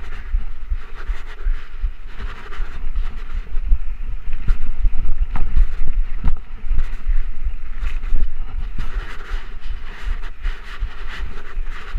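Wind buffeting a chest-mounted action camera during a fast mountain bike ride, with tyre noise on the dirt trail and frequent clicks and rattles from a 2013 Trek Rumblefish Pro full-suspension bike going over bumps.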